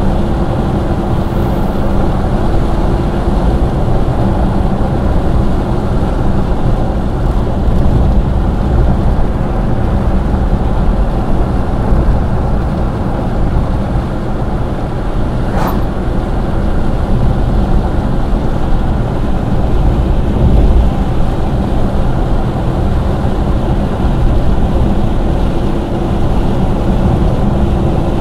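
Steady road and engine noise heard from inside a moving car, with a low hum under it. There is a brief click about sixteen seconds in.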